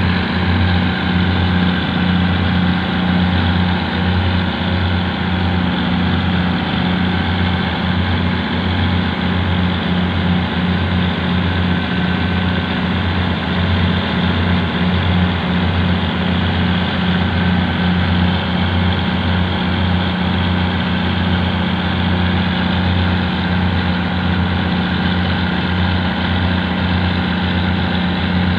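Fishing boat's diesel engine running steadily, a low throb that pulses evenly, heard from on board.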